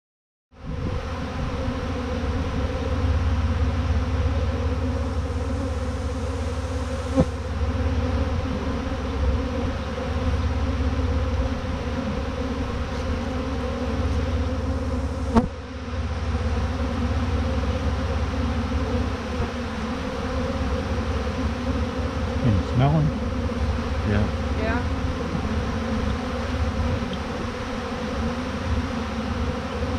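Dense, steady buzzing of a honeybee swarm of tens of thousands of bees close around the microphone, with single bees passing close now and then as short rises and falls in pitch. Two sharp clicks, about 7 and 15 seconds in.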